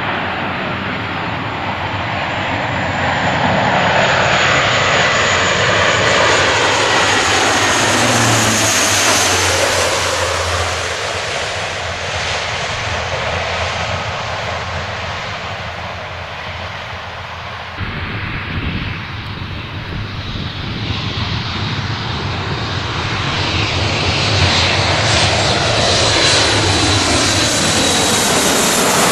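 The four turbofan engines of a Boeing C-17A Globemaster III transport jet, running loud during its landing. The roar swells and sweeps in pitch as the aircraft passes close by, with a high whine over it. There is an abrupt change about eighteen seconds in, and the roar builds again near the end.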